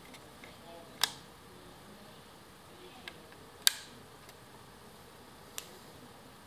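Four short, sharp clicks from a hand-held electronic carp-fishing bite alarm being handled, spaced a second or two apart, the third the loudest; the alarm's own tone does not sound.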